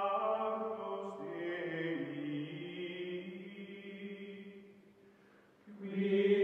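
Background music of slow chanted vocals holding long, sustained notes. The pitch steps lower about a second in, the sound fades out around five seconds in, and a new, louder held chord starts shortly before the end.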